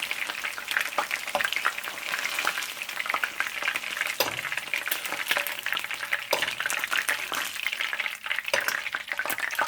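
Chicken pieces sizzling as they fry in hot oil in a pot, with a few sharp knocks of a utensil against the pot.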